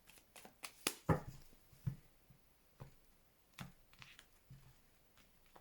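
Tarot cards being handled and drawn: a scattering of short, faint clicks and soft taps at irregular intervals.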